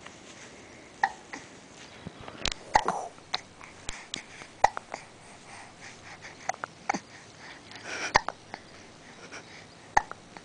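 A small child hiccuping repeatedly: short, sharp hiccups at irregular intervals, roughly one every second or two.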